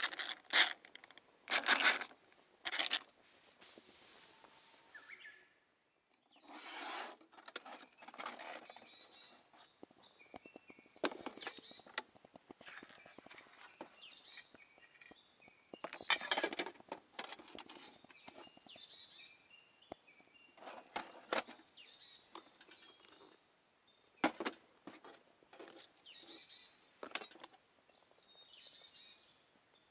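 Handling of camp cooking gear: a plastic food packet rustling, then stainless steel mess tin lids lifted and set down with light metallic clinks, in a string of short separate sounds. Small birds chirp in the background.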